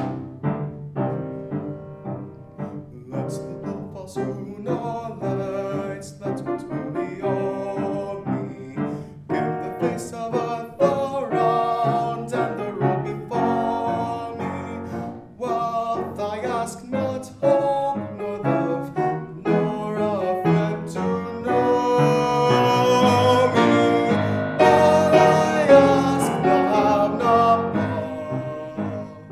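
A young male singer performing a classical art song with piano accompaniment. The piano plays regular repeated chords, and the voice grows louder and fuller past the middle.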